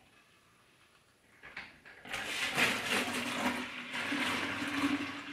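Beer wort poured from a stainless steel brew pot into a glass fermenter jar. It splashes steadily from about two seconds in, with a hollow note that rises slightly as the jar fills.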